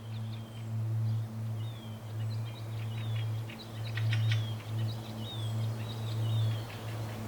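Small songbirds chirping, with repeated down-slurred whistled notes and a quick run of sharp chips about four seconds in. Underneath are a low, steady, swelling drone and a soft hiss of falling water.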